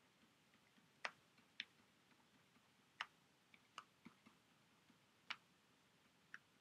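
Near silence broken by about seven faint, irregularly spaced clicks of a stylus tapping a tablet screen while handwriting.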